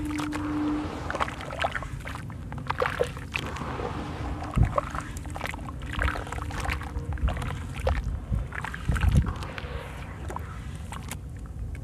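Hands squeezing and swishing wet sand-and-cement slurry in a basin: watery sloshing and squelching with irregular splashy clicks, and two heavier wet thumps, about four and a half and nine seconds in.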